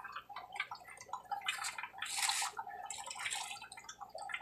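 Water sloshing, splashing and dripping as a small clear container is dipped into a tank and filled, with louder splashes about two and three seconds in.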